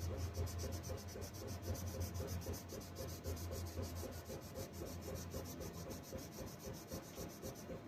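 Rapid, even back-and-forth scrubbing or rubbing by hand on a small part, about eight strokes a second, with a low hum that fades about halfway through.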